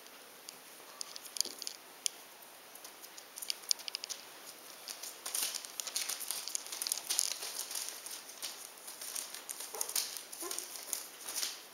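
Young puppies scrambling about on sheets of newspaper, the paper crinkling and rustling under their paws in irregular patters, busier from about five seconds in.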